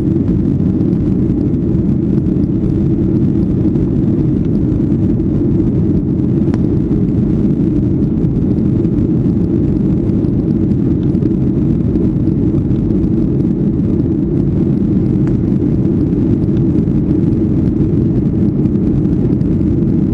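Boeing 757-200 cabin noise in the climb: the steady drone of the jet engines and rushing air, dense and low-pitched, holding an even level.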